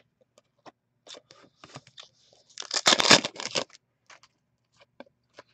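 Trading cards being handled and flipped: scattered light clicks of card stock, and about three seconds in a louder rasp lasting about a second.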